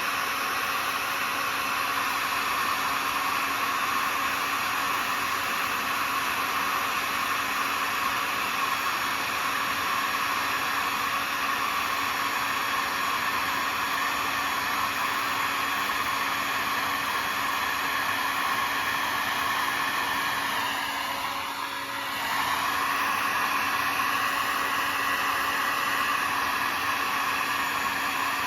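Electric heat gun blowing steadily, shrinking heat shrink tubing on crimped wire connectors. The airflow dips briefly about three quarters of the way through, then comes back at full strength.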